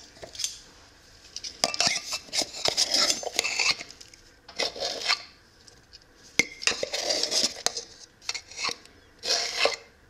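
Metal measuring teaspoon scraping and clinking in a can of baking powder as it scoops out the powder, in several short bursts.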